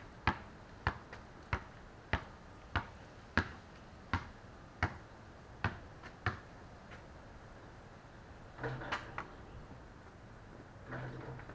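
Basketball dribbled on a concrete driveway: about ten steady bounces, a little under two a second, that stop about six seconds in. A short cluster of knocks follows a couple of seconds later.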